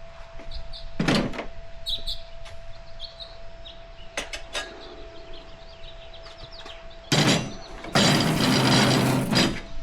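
Tire-mounting handling noise on a dirt bike wheel: scattered clicks and knocks of tools and parts. About seven seconds in comes a short loud scrape or rub, and a second later a longer one that lasts until near the end.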